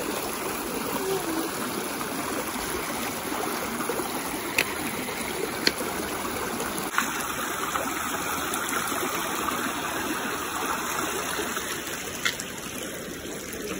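Shallow river running fast over stones: a steady rush of water, with a few short sharp clicks in it.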